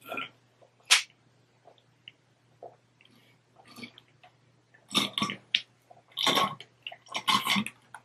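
A person drinking water from a plastic bottle: swallowing gulps and water sloshing in the bottle. A few short, separate sounds come first, then a denser run of them in the second half.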